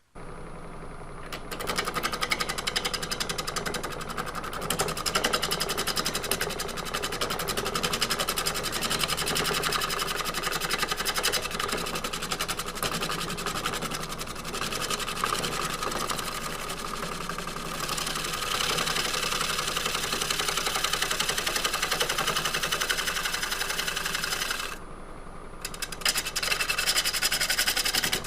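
Wood lathe running while a gouge cuts a spinning dry, roughed-out Bradford pear bowl blank, a rapid ticking, scraping cut over the motor's hum. The cut stops briefly about 25 seconds in and then resumes.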